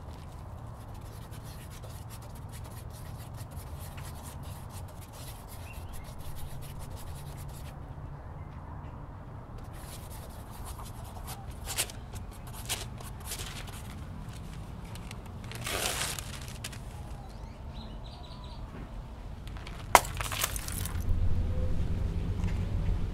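Paper being handled, with short rustles and scrapes and a few light clicks, over a steady low outdoor rumble; a sharp click about twenty seconds in.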